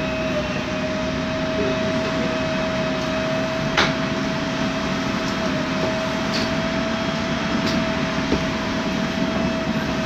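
MAN Lion's Classic city bus idling at a stop, its MAN E2876 CNG engine running steadily with a steady whine over a low rumble. A single sharp click about four seconds in.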